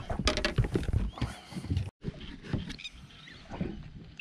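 Rapid thumps, knocks and splashing of a freshly netted barramundi thrashing in the landing net against the boat. The noise stops dead about two seconds in and gives way to quieter scattered knocks.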